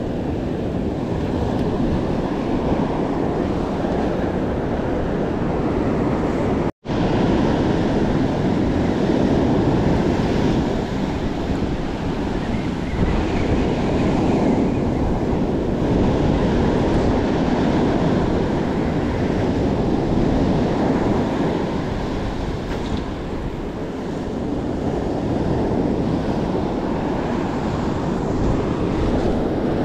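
Ocean surf breaking and washing on a sandy beach, a steady rushing wash mixed with wind buffeting the microphone. The sound drops out for an instant about seven seconds in.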